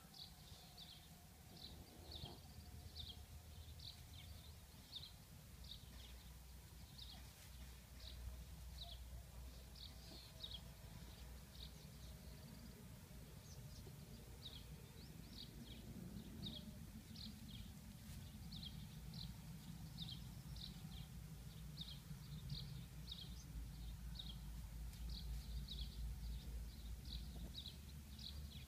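Faint outdoor ambience: short high chirps repeating about twice a second, over a low rumble that grows louder in the second half.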